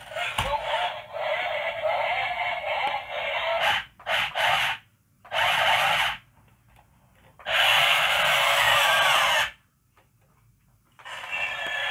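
A convertible RC robot car's built-in speaker plays its electronic sound effects and music, thin-sounding with no bass. It comes in several bursts: a long stretch, then shorter ones, with short near-silent gaps between them.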